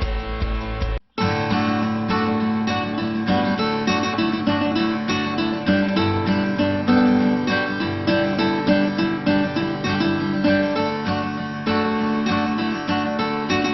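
Background music led by acoustic guitar, with quick rhythmic plucked and strummed notes. It cuts out briefly about a second in, then starts again as a new passage.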